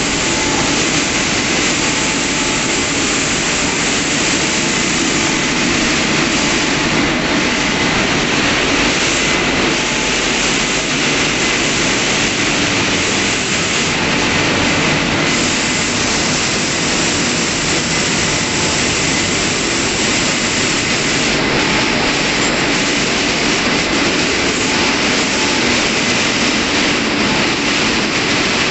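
WashTec SoftCare 2 Pro rollover car-wash dryer, its blower fans running with a loud, steady rush of air as the gantry passes over the car.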